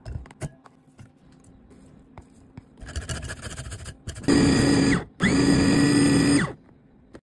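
Light clicks and knocks, then a hand grater rasping, then an electric food chopper's motor running in two short pulses, the second longer, with a whine that rises as each pulse starts and drops away as it stops, chopping chicken, shrimp and chayote.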